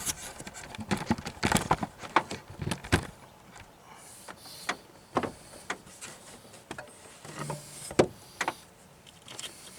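Irregular clicks, taps and knocks of hand tools and parts being handled during engine-bay work on old fuel hoses and fittings, with one sharper knock about eight seconds in.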